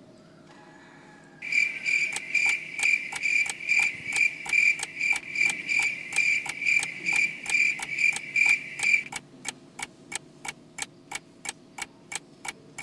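Chirping-cricket sound effect, the 'awkward silence' cue: a pulsing high chirp with an even clicking beat at about three a second. The chirp cuts off abruptly about nine seconds in, leaving only the clicks ticking on like a clock.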